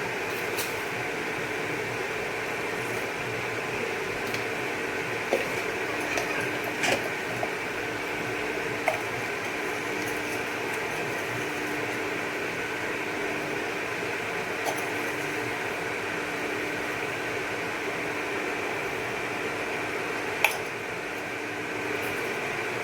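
Steady whirring hum of an induction cooktop heating a pot of water, with a few light clicks and taps of utensils; the sharpest click comes near the end.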